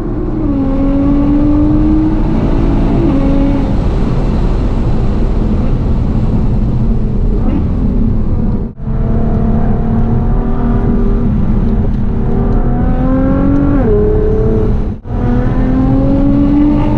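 Nissan R35 GT-R's twin-turbo V6 with a full HKS exhaust running hard on a race track, its pitch climbing slowly under acceleration and dropping sharply at each upshift or lift. The sound cuts out briefly twice.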